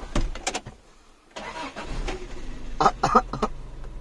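Daihatsu Feroza's four-cylinder petrol engine starting about a second and a half in and settling into a steady idle, heard from inside the cabin.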